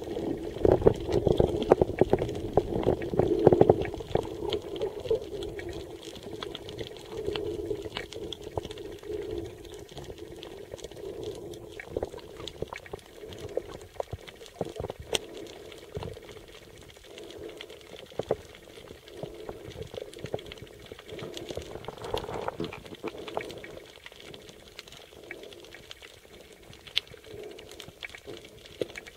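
Underwater sound picked up by a submerged camera while snorkeling: a steady bubbling, gurgling wash of water with scattered sharp crackling clicks. It is loudest in the first few seconds, then settles lower.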